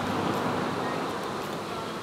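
A vehicle's road noise fading away after it passes on the road, with a faint steady hum underneath.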